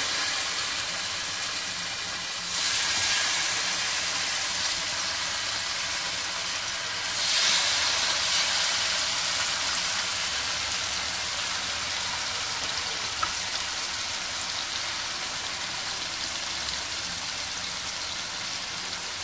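Marinated seer fish (vanjaram) steaks sizzling in hot oil on a dosa griddle. The sizzle jumps louder about two and a half seconds in and again about seven seconds in as the other two steaks go into the oil, then eases back to a steady hiss.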